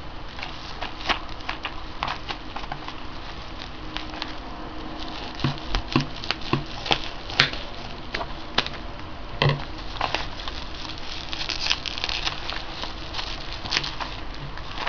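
Plastic bubble wrap crinkling and crackling as hands handle and unwrap it, a steady run of irregular sharp clicks with a few louder ones around the middle.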